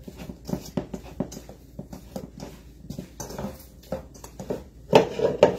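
Oiled hands working a soft dough in a bowl: irregular soft taps, slaps and squelches, with a louder cluster near the end.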